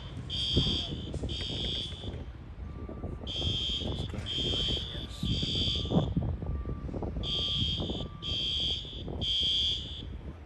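High-pitched electronic alarm beeping in groups of three, a new group every four seconds: the temporal-three evacuation pattern of a fire alarm.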